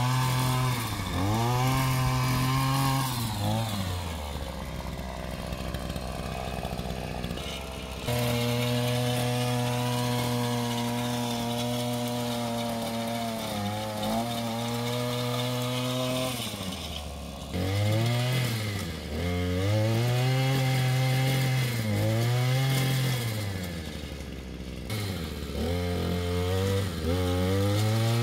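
Earthquake mini tiller's small gas engine working ground, revving up to high speed as the throttle is squeezed and dropping back to idle when it is released. It falls to idle about four seconds in for a few seconds, dips briefly twice in the middle, idles again shortly before the end and then surges up and down.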